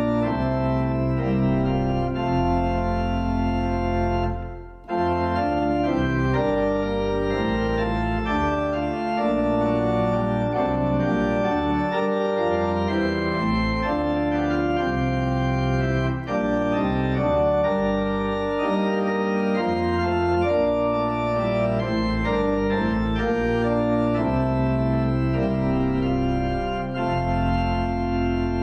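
Two-manual church organ playing held chords over deep sustained bass notes, the chords changing every second or so, with a brief break about five seconds in.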